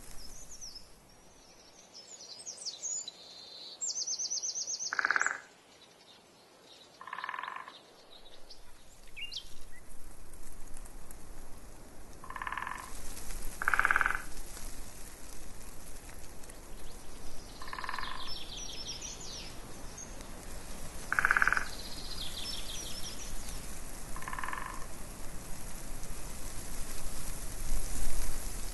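A frog croaking in short single calls, about seven in all, a few seconds apart. Small birds sing faint high twitters in between.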